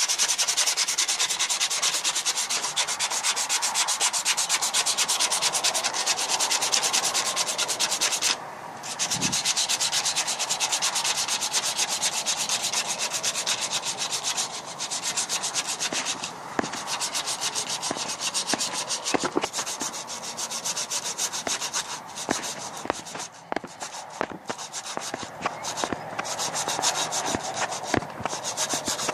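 Rapid back-and-forth hand sanding of a metal spearhead with 120-grit sandpaper, steady strokes with a short break about a third of the way through.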